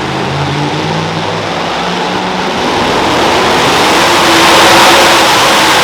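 Super modified two-wheel-drive pulling truck's engine running hard under load during a pull, growing louder from about three seconds in and peaking near the end.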